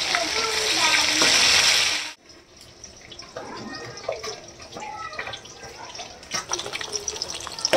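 Loud steady kitchen hiss that cuts off abruptly about two seconds in, followed by quieter light clicks and clinks.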